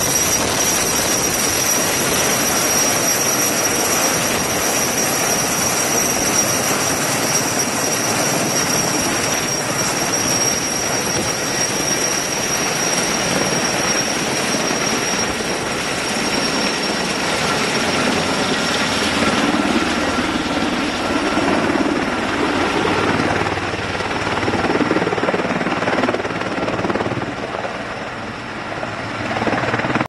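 Sikorsky S-64 Skycrane heavy-lift helicopter hovering with a slung load, its twin turboshaft engines and rotor making a loud steady noise. A high steady whine runs through the noise and fades out about halfway through.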